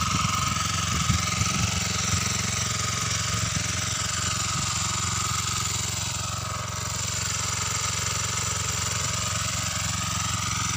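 Small engine of a Samyak FC 600 power cultivator running steadily while weeding, its speed drifting slightly up and down, with a few sharp knocks in the first two seconds.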